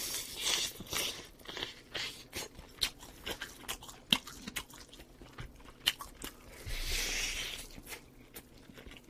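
Close-miked biting and chewing of grilled chicken: a bite, then a run of short, sharp crunching clicks as it is chewed, with a longer soft hiss about seven seconds in.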